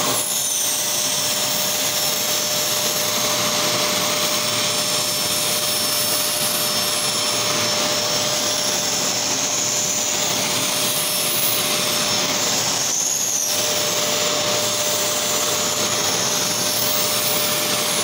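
Fakir Darky Comfort 2-in-1 800-watt corded stick vacuum running steadily as it sucks crumbs up from a rug: a constant rushing noise with a steady whine. About 13 seconds in, the sound briefly dips and its pitch bends.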